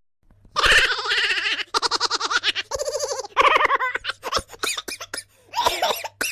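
A person's voice making high-pitched, fast-pulsing laughter-like sounds in several bursts, over a faint steady hum.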